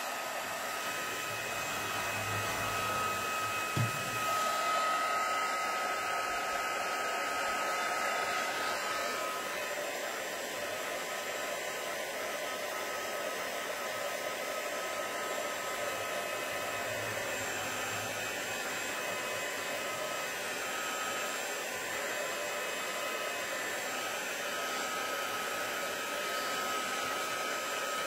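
Craft heat tool (embossing heat gun) blowing steadily, a rush of hot air with a steady whine from its fan, drying a freshly water-sprayed ink panel.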